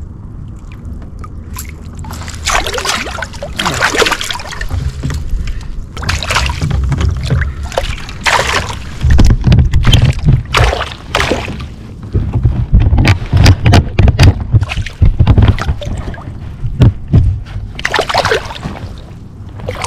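Smallmouth bass thrashing in a landing net at the side of a kayak: irregular splashes and sloshing water, with low rumbling underneath.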